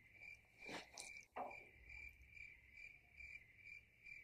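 Faint crickets chirping in an even, steady pulse: a night-time insect chorus.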